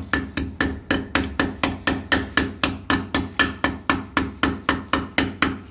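Small hammer tapping a new 6202 ball bearing into its seat in a water pump motor's metal end cover: light, even taps at about four a second, pressing the bearing home.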